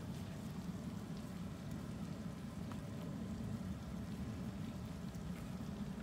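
Faint, steady low background rumble with a few soft clicks, likely from a knife working on a cutting board.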